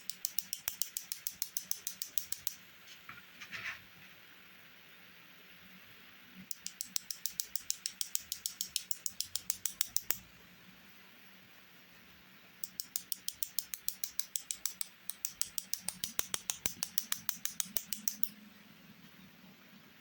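A paintbrush tapped rapidly, about ten sharp ticks a second, to spatter white paint in droplets. It comes in four runs of a few seconds each, with short pauses between.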